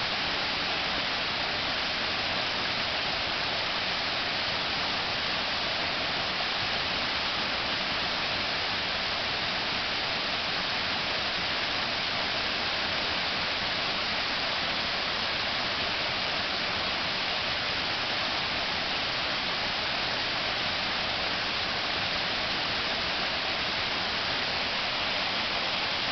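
River waterfall: a steady, unbroken rush of falling water.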